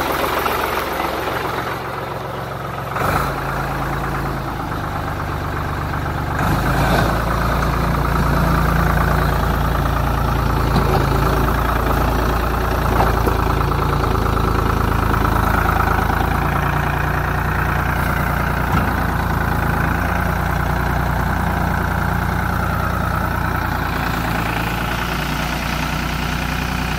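Ford 3000 tractor's three-cylinder engine running steadily, its pitch changing abruptly a couple of times in the first seven seconds, while the front loader works snow.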